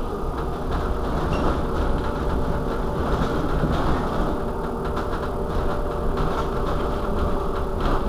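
Irizar ie tram battery-electric bus standing still at a stop, its onboard systems giving a steady hum with a few faint held tones over a low rumble.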